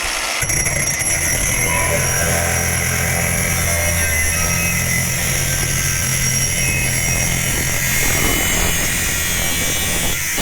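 Cordless angle grinder running at full speed with a steady high whine, cutting into a rusted exhaust pipe; the cut fills in with a heavier grinding sound about half a second in.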